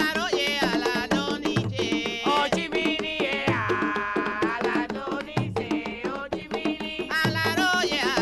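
Afro-Cuban Yoruba ritual music played back from a recording: an all-women group singing over hand drums and percussion, with one long held sung note about halfway through.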